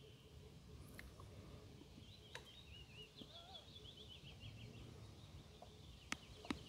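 Near-quiet ambience with a small bird's faint twittering song about two seconds in, and two sharp clicks near the end.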